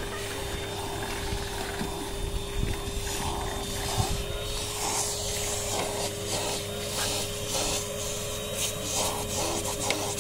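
Vacuum cleaner running with a steady whine and hiss as its hose nozzle is worked over a car's rear footwell. From about halfway through, the nozzle scrapes and clicks against the floor in irregular strokes.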